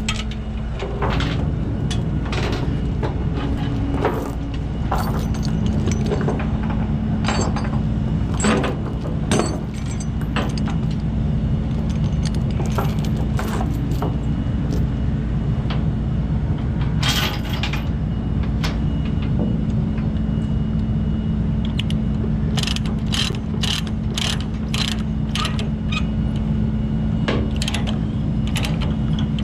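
Steel tie-down chain clinking on a wooden trailer deck, then a ratchet chain binder being cranked tight, its pawl clicking in quick runs near the end. A steady low engine hum runs underneath.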